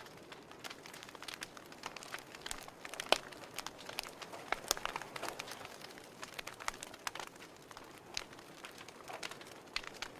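Fire crackling: irregular sharp pops and snaps over a soft hiss, with one louder pop about three seconds in.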